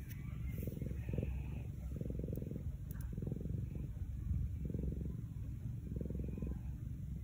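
Orange tabby house cat purring close up in a steady rhythm of swells with each breath in and out, a sign that it is content while being stroked.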